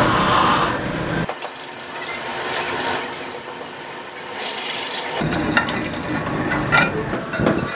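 Drill press drilling a hole through a steel bracket, the bit cutting steadily, with the low rumble dropping away for a few seconds in the middle.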